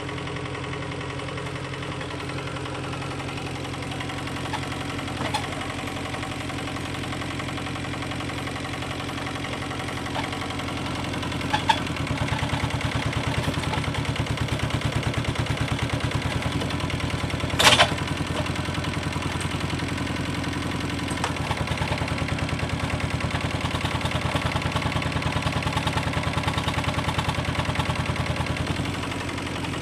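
Excavator engine running steadily. It gets louder from about twelve seconds in until near the end, and there is one sharp clank about halfway through.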